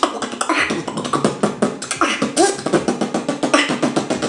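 A beatboxer performing a fast beat of mouth-made drum sounds, several sharp strikes a second, which stops abruptly at the end.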